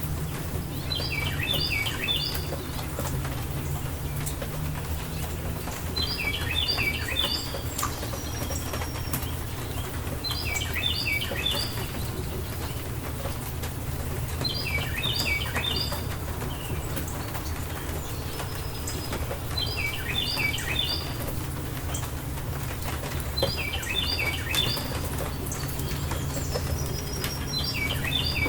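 A songbird singing the same short phrase of quick descending notes, about once every four to five seconds, over steady rain with a low rumble.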